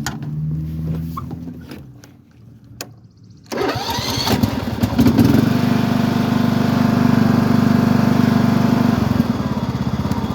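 Toro TimeCutter zero-turn mower's engine cranking and catching about three and a half seconds in, after a couple of clicks, then running steadily. It starts right up now that the blown fuse has been replaced.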